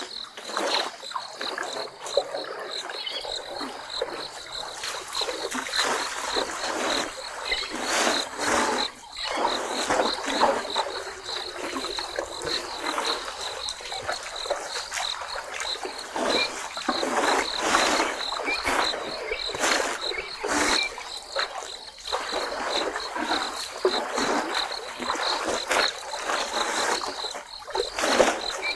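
African elephants drinking at a waterhole: irregular sloshing and splashing of water, with sharper splashes now and then. Above it, an insect keeps up a high, evenly pulsing trill.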